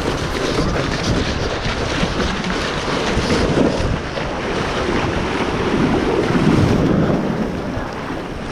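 Ocean waves breaking and washing on the beach, with wind buffeting the camera's built-in microphone in a steady low rumble.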